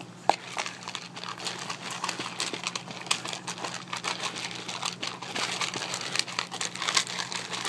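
Dry kibble clattering and crunching in a plastic slow-feeder bowl as a hand stirs through it while a dog eats from it: a dense, continuous run of small clicks, with one sharper click just after the start.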